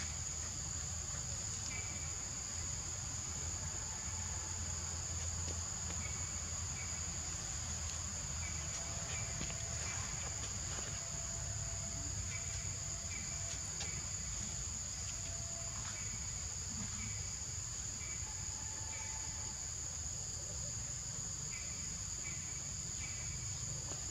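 Steady high-pitched drone of forest insects such as cicadas or crickets, with short high chirps repeating every second or two and a low rumble underneath.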